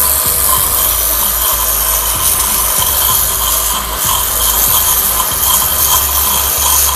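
StarQ W3 pressure washer running at full pressure, its motor and pump humming steadily under the loud hiss of the water jet blasting a sand-caked brick.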